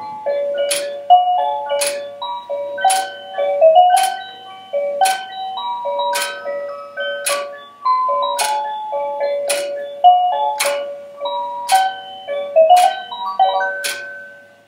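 Engstler quartz cuckoo clock playing its built-in melody, a tune of single plinking notes, with a sharp click about once a second. The tune fades out right at the end.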